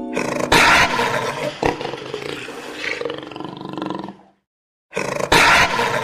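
Tiger roaring, loudest about half a second in. It cuts off dead after about four seconds, and the same roar starts again a moment later.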